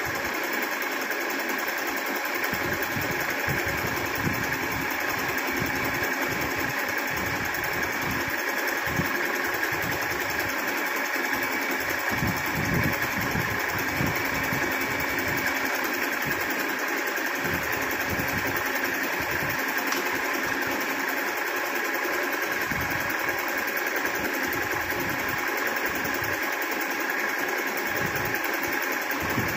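Singer Simple electric sewing machine running steadily, stitching an embroidery design on cloth held in a hoop that is guided by hand.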